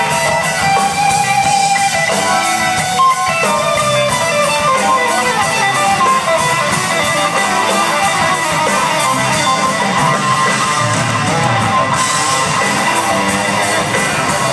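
Live rock band playing, electric guitar and drums, with moving guitar lines heard over the band.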